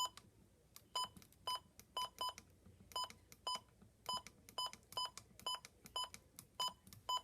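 Short, high electronic beeps, one steady pitch each, repeating about twice a second.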